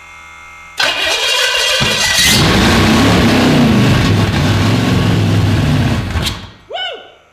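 Rebuilt Pontiac 389 Tri-Power V8 on an engine run stand, cranking on the starter a little under a second in and firing up. It runs with a rumble that is revved up and down for about four seconds, then stops.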